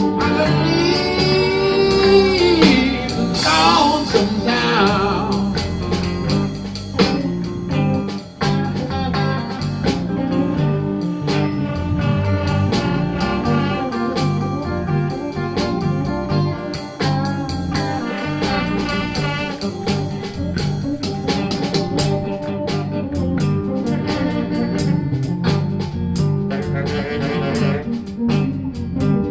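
Electric blues band playing: guitars, bass and drums in a steady groove, with a lead line bending up and down in pitch in the first few seconds.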